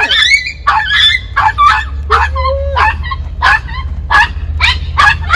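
A dog barking excitedly in a rapid string of sharp barks and yips, two to three a second, with a short drawn-out whine partway through.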